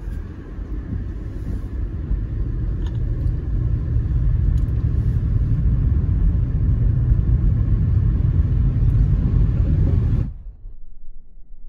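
Low, steady rumble of a car driving on a wet road, heard from inside the cabin. It cuts off abruptly about ten seconds in, leaving a faint low hum.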